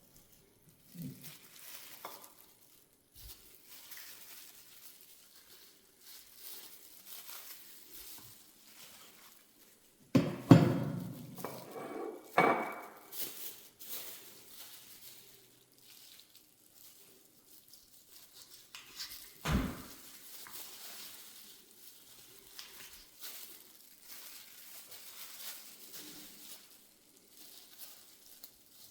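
Food sizzling in a frying pan, with a utensil stirring and pans and dishes clattering, loudest about ten seconds in and again near twenty seconds.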